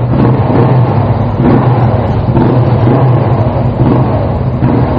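Suzuki GS500 parallel-twin motorcycle engine running steadily, just started on a nearly flat battery and left running to charge it.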